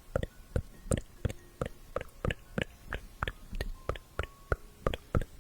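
ASMR mouth sounds: a fast, irregular run of wet mouth clicks and smacks, several a second.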